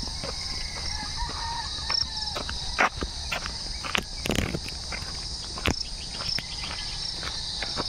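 Steady high-pitched insect chorus, with irregular footsteps and a rooster crowing faintly in the first couple of seconds.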